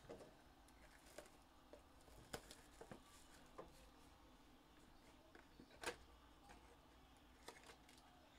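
Near silence with faint handling of a cardboard trading card hobby box being opened: a few scattered light taps and scrapes, the clearest about six seconds in.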